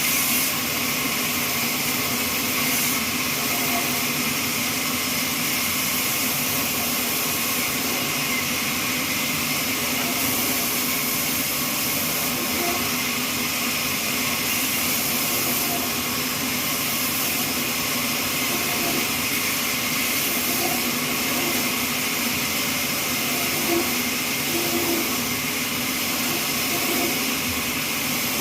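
Horizontal trolley band sawmill running steadily through a neem log, a constant high hiss over a steady machine hum with no breaks.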